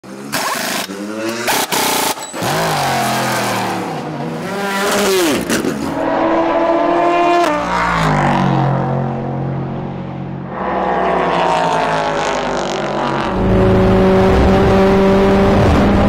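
Endurance race cars at a circuit. A few sharp, sudden bursts open the clip, fitting a pit-stop wheel gun at a wheel. Engines then rise and fall in pitch through gear changes, with one dropping in pitch as a car goes by, and from about three seconds before the end a loud, steady engine note with a deep rumble.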